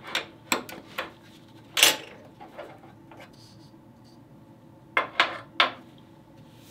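Sharp metallic clinks and knocks from handling a small metal can of wood stain: the lid being opened and the can handled. Several clinks in the first two seconds, the loudest near two seconds in, then three more close together about five seconds in.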